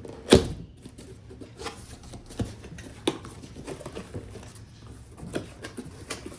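A cardboard box and its packing being handled and opened: scattered rustles and crackles with several sharp knocks, the loudest about a third of a second in.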